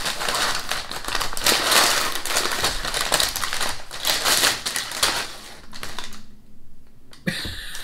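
Brown packing paper crinkling and rustling as it is handled and pulled out of a cardboard box: a dense run of crackles that stops about six seconds in, with a few more rustles near the end.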